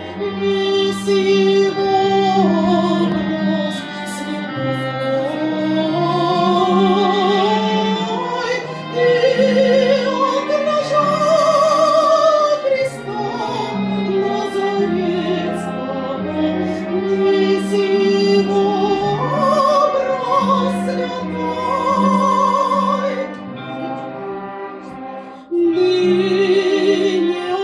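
Female voice singing a slow sacred song in classical, operatic style with wide vibrato, accompanied by a sustained low tone and sharp, ringing strikes of bells. She breaks briefly near the end before the next phrase.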